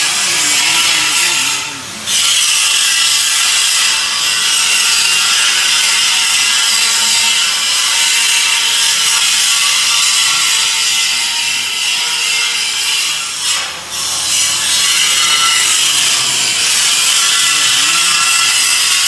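Stone-cutting machine grinding a surface flat, a steady loud hissing grind with two brief dips, about two seconds in and near fourteen seconds.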